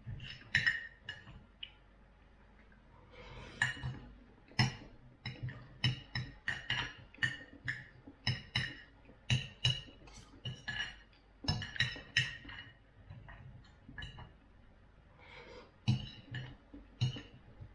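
Metal knife and fork clinking and scraping on a plate while food is cut, in quick irregular taps with short pauses.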